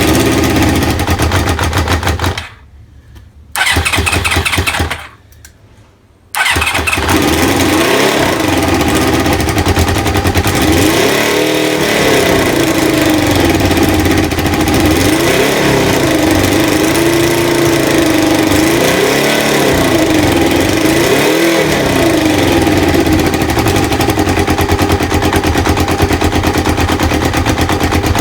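Kawasaki ZL600 Eliminator's inline-four motorcycle engine being started with its air/fuel screws at the factory 2.5 turns. It cranks twice on the starter without catching. On the third try, about six seconds in, it fires and keeps running. It is blipped four or five times, rising and falling in revs, then settles to a steady idle.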